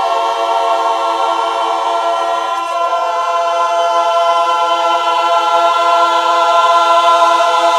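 Women's barbershop chorus singing a cappella, holding one long sustained chord at the close of a ballad, with the chord shifting about three seconds in.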